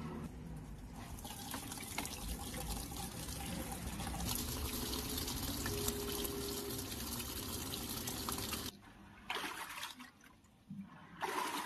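Water running into the washing machine's tub through its inlet during a test fill at the lowest water level, a steady hiss that cuts off suddenly about nine seconds in. A few brief sounds follow near the end.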